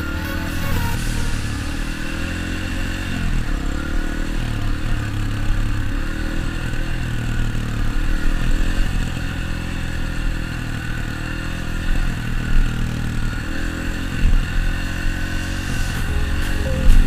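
Dirt bike engine running while riding, with the throttle and engine note rising and falling every few seconds.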